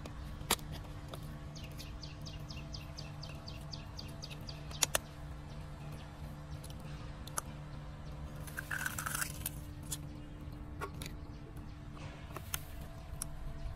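A chicken egg being cracked into a plastic cup of water: a couple of sharp taps, then a brief splashy noise about nine seconds in, over a steady low hum.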